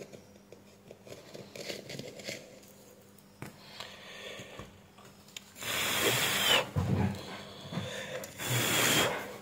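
Fingers rubbing and pressing on the plastic case of a freshly glued flashlight battery pack. Faint handling sounds at first, then two louder rasping rubs, one a little past halfway and one near the end.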